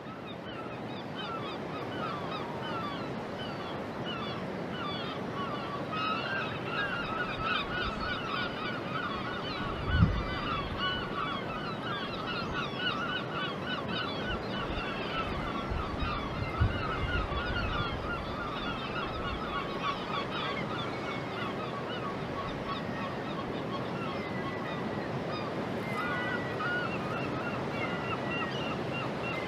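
A flock of birds calling: many short honking and squawking calls overlap and are thickest in the middle. Two brief low thumps come about a third and halfway through.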